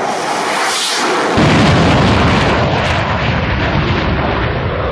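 Sukhoi Su-27 fighter's twin AL-31F turbofan engines at takeoff thrust, a loud rushing jet noise. About a second and a half in it turns abruptly louder with a deep rumble added.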